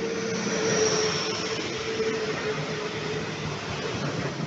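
Regional passenger multiple-unit train running past close by, with a steady rush of wheels and running gear on the rails. A humming tone sinks slightly in pitch, and a high whine falls away about a second in.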